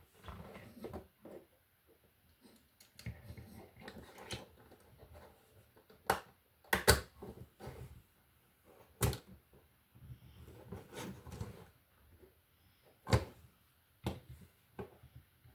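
Plastic Lego bricks being handled and pressed together: a few sharp clicks, the loudest about seven seconds in, with softer rustling of pieces between them.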